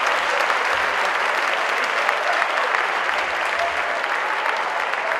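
A theatre audience applauding steadily, many hands clapping at once.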